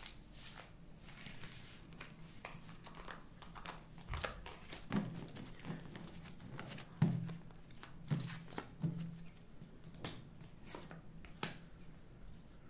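A deck of paper playing cards being gathered off a tabletop and shuffled by hand: an irregular run of soft card flicks and slides, with a few louder taps in the middle seconds.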